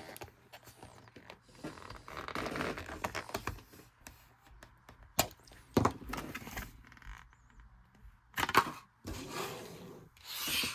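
Milwaukee Fastback 6-in-1 utility knife cutting: several scraping strokes of the razor blade through material, with a few sharp clicks and knocks in between.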